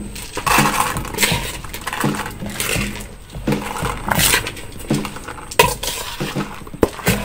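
Metal spoon scraping and clinking against an aluminium bowl as soaked glutinous rice and peanuts are pushed out and slide down into a steamer pot, the grains hissing as they fall. A couple of sharp clinks near the end.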